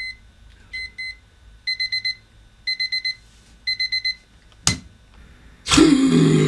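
Digital alarm clock beeping, first in pairs, then in quick bursts of four about once a second. The beeping stops after about four seconds; a sharp knock follows, then a man's loud startled cry that falls in pitch near the end.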